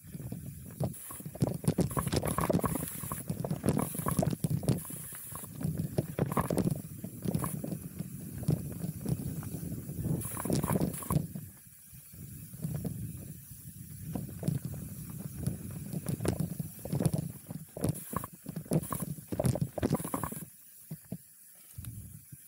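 Chromag Rootdown steel hardtail mountain bike descending a dry dirt trail: tyres rumbling over the ground, with the bike rattling and knocking over bumps and wind on the microphone. The noise eases briefly near the end as the bike slows.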